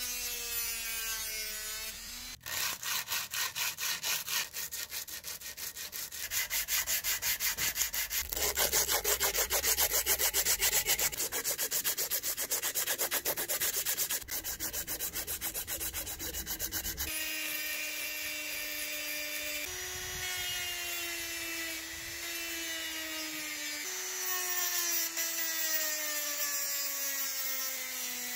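High-speed rotary tool with a sanding drum grinding down welds on the cutter's metal blade, its whine dropping in pitch under load. About two seconds in it gives way to sandblasting, a rapidly pulsing hiss for some fifteen seconds. Then the rotary tool's whine returns, wavering in pitch as the drum sands a cast metal part.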